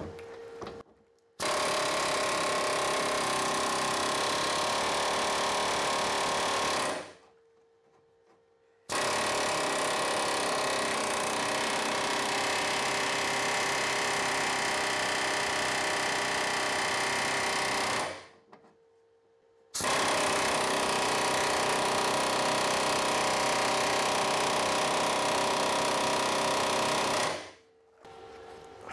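Impact wrench hammering on a rusted rear suspension link-arm bolt in three long runs, each several seconds of rapid, steady rattling, with short pauses between.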